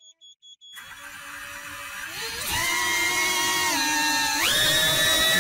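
A few faint short high beeps, then a high whine from a small motor that swells, steps up in pitch, dips briefly and jumps higher again.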